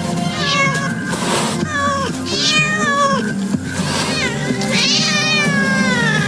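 Two African wildcats yowling and caterwauling in a fight over a female. There is a series of drawn-out calls that rise and fall in pitch, with a long call sliding downward near the end.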